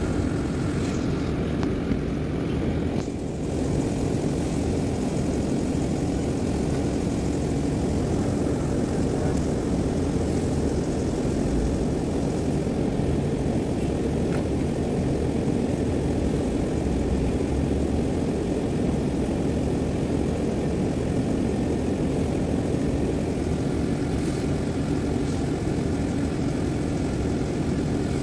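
Vehicle engine running steadily, a low continuous drone, heard from inside a vehicle's cabin.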